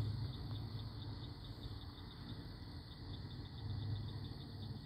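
Night insects, most likely crickets, chirping in a steady high trill with regular short chirps about four a second. Underneath runs a low rumble that swells and fades.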